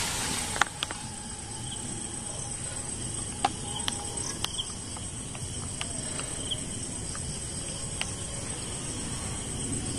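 Crickets or other night insects trilling in one steady high-pitched tone, with a few sharp clicks and snaps here and there.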